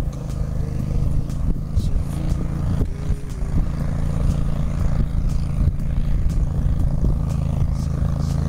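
Motorboat engine running at a steady drone, with wind rumbling on the microphone.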